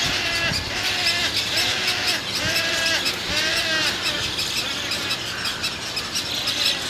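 Roseate spoonbill chicks begging for food at the nest: a series of short, repeated squawking calls, each rising and falling in pitch, about one a second. Past the halfway point the calls give way to a more diffuse chatter.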